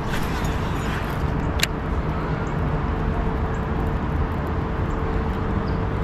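Steady low rumble of outdoor background noise with a faint steady hum, and two sharp clicks, one at the very start and one about a second and a half in.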